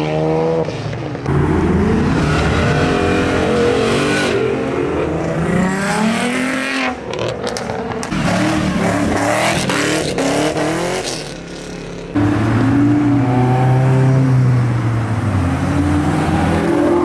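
Performance cars accelerating hard away one after another, engines revving, the pitch rising and falling several times. The sound breaks off and jumps sharply to a different car a few times.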